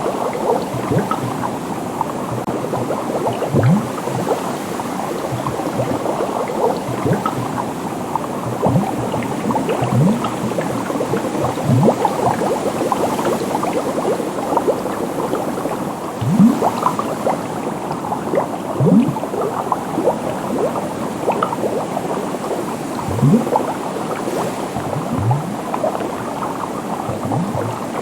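Bubbles in water: a steady, dense bubbling. Every few seconds a larger bubble gives a louder, low plop that rises in pitch.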